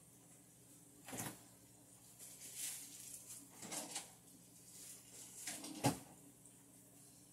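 A few faint knocks and rustles, the sharpest a click near the end, over a steady low hum.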